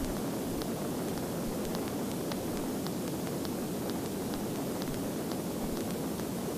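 Steady engine and airflow noise of a single-engine Cessna in flight, descending on its approach to land.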